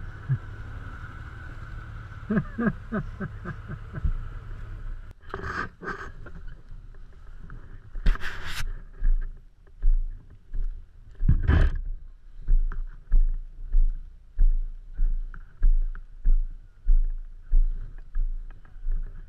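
A side-by-side's engine runs steadily while driving, then after a few loud knocks come crunching footsteps on a gravel trail, about two steps a second.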